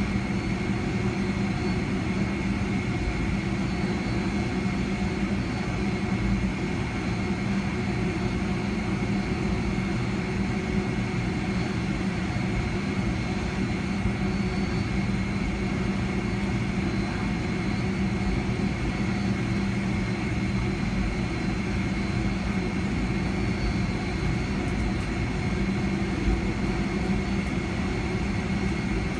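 Cabin noise inside a Boeing 757-300 while it taxis: the jet engines at taxi power give a steady hum with a thin high whine over a constant rushing hiss.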